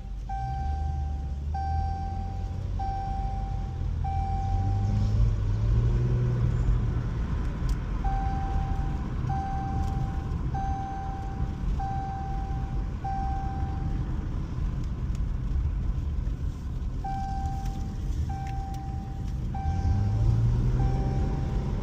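Jeep engine running while driving, its pitch rising twice as it speeds up. Over it a vehicle warning chime beeps about once a second in repeated runs of about five.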